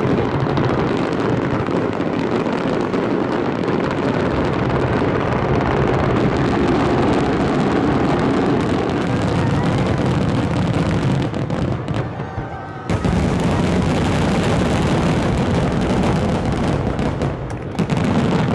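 Aerial fireworks shells bursting in a dense, continuous barrage of overlapping booms and crackle. There is a brief lull about twelve seconds in, then the barrage starts again abruptly.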